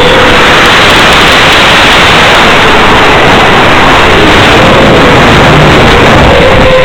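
Loud steady hiss from the audio channel of an FPV quadcopter's analog video link, with the drone's motors faintly audible as a whine that rises and falls in pitch with the throttle.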